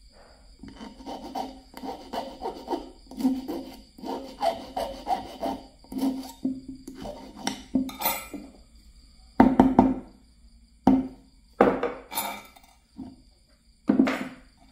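Steel hand file rasping across the tip of a copper wire braced against a wooden block, in quick repeated strokes of about two or three a second, sharpening the point of a homemade fish hook. After about eight seconds the filing stops and a few louder knocks follow.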